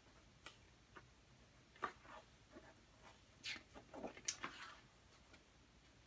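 Faint rustling and soft ticks of paper sheets being handled as pages are turned, a few short sounds scattered through, the busiest stretch a little past the middle.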